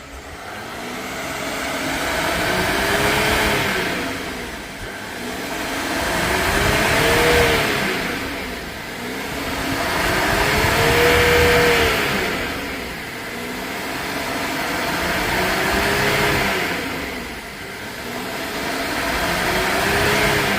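Hyundai Veracruz diesel engine revved up and back down about five times, each rev rising and falling over three to four seconds.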